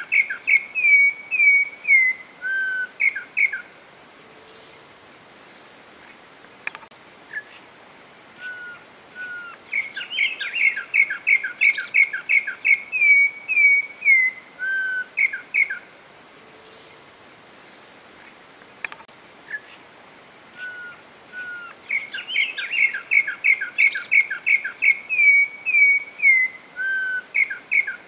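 A corrupião (troupial) singing three loud bouts of fast, repeated whistled notes, each a few seconds long and ending in a few lower slurred whistles. The bouts come at the start, about ten seconds in and about twenty-two seconds in, with pauses between them. Faint high chirps run underneath.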